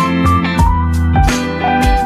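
Background music: a guitar-led instrumental with a steady beat and a plucked melody line.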